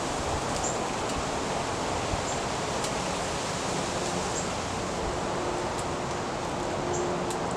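Steady, even rushing noise of outdoor ambience, with a short, high bird chip about every two seconds.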